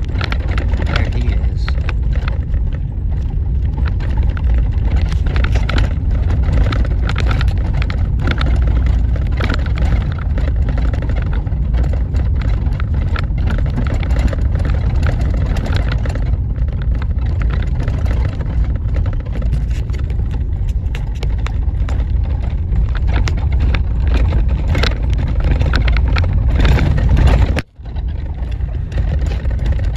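Vehicle driving over a rough stubble field, heard from inside the cab: a steady, loud low rumble with frequent rattles and knocks from the bumpy ground. The sound drops out for a moment near the end.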